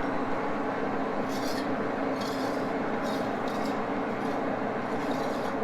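Axelson lathe running with a steady mechanical hum, a few short high hissing scrapes over it.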